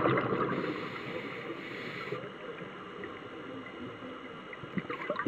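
Underwater noise picked up through a dive camera's housing: a rushing wash of water with fizzing bubble crackle, fading over the first second or so and then staying low and even.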